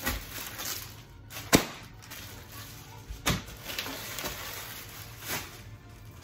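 Plastic-bagged merchandise being handled and set down on a table: packaging rustling, with four sharp slaps of packages, the loudest about one and a half seconds in.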